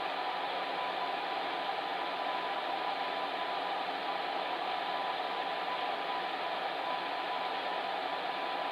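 Electric fan heater running steadily: an even blowing hiss of air with a faint steady hum.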